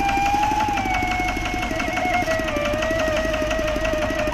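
Single-cylinder diesel tractor engine running steadily with a fast even chugging, belt-driving a coconut grater while a coconut half is pressed against it. A high sustained whine sits over it, sliding slowly lower in pitch.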